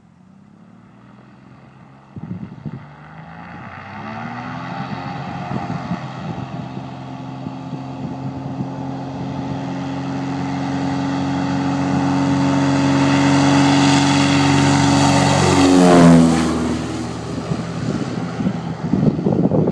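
Cessna 182's single piston engine and propeller going to full takeoff power about two seconds in, then growing steadily louder as the plane climbs toward the microphone. Its pitch drops sharply as it passes overhead a few seconds before the end, followed by gusts of wind on the microphone.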